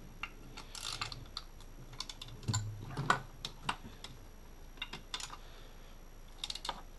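A socket ratchet and hand tools clicking and tapping irregularly while coil pack bolts are given a light final tightening, with a soft knock about two and a half seconds in.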